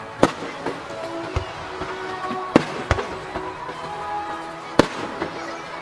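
Aerial fireworks going off with four sharp bangs, about a quarter second in, twice around two and a half to three seconds, and near five seconds, over music that plays throughout.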